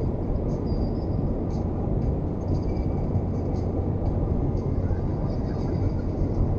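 Steady road and engine drone inside an Isuzu MU-X cruising at motorway speed: a deep, even rumble that holds level throughout.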